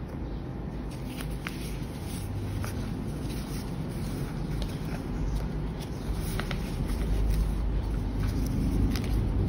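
Cardboard packaging and paper leaflets being handled, giving a few faint clicks and rustles. Under them runs a low rumble that grows louder toward the end.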